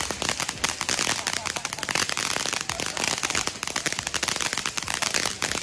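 Freedom Fireworks Spirit of Freedom fountain, a rewrap of the Centennial Fountain, in its crackle finish: a dense, continuous crackling of many small sharp pops.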